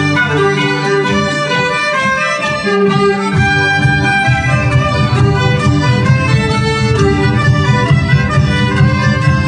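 Folk dance band playing an instrumental tune live: several melody instruments over a steady beat, with the bass filling out about three seconds in.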